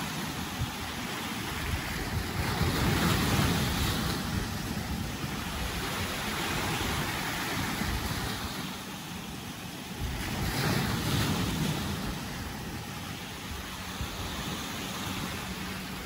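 Sea waves breaking and washing against a rocky shore, with a steady foamy hiss that swells louder twice, a few seconds in and again about two-thirds of the way through.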